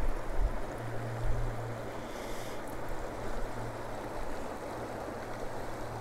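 Steady rush of a river's current flowing past rocks and boulders.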